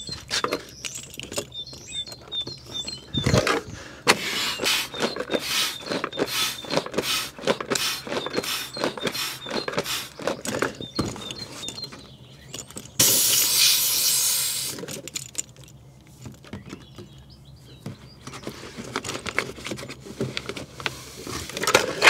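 A small pump inflating an Advanced Elements PackLite inflatable kayak through a hose, its strokes coming about twice a second. About thirteen seconds in there is a louder rush of noise lasting a second or two, then fainter strokes resume.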